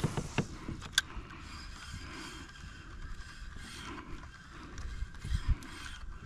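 Spinning reel being cranked to retrieve a lure, a low mechanical running noise, with a sharp click about a second in and a couple of low knocks near the end.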